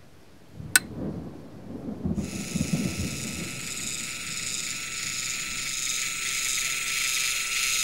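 A sharp click as a device is pressed, then low rumbling and rustling, then a steady high-pitched mechanical whir that runs on and cuts off suddenly.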